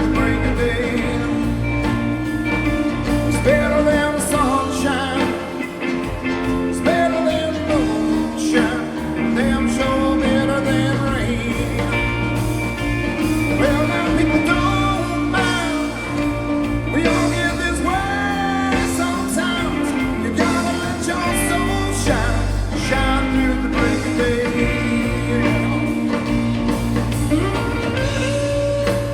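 Live blues-rock band playing, with a steady bass line under a lead part that bends up and down in pitch.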